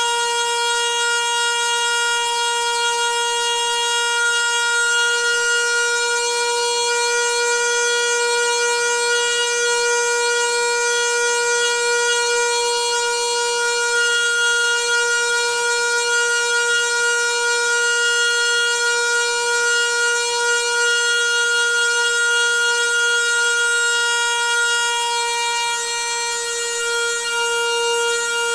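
Noisy water pipe singing: a steady, unwavering high-pitched tone with strong overtones that holds the same pitch and level throughout.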